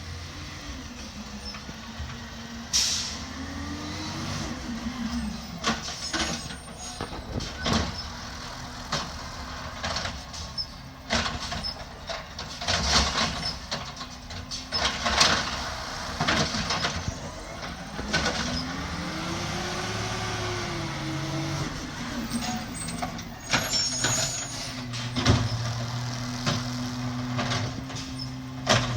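Recycling truck working at the curb: its diesel engine rises and falls twice in pitch while the lift runs, with repeated bangs and clatter of the recycling being emptied and short hisses of air from the brakes.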